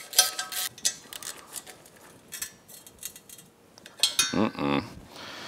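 Ratchet and socket extension working the exhaust header flange bolts on a Yamaha YFZ450R engine: quick runs of metallic clicks and clinks in short spells, with a short louder sound about four seconds in.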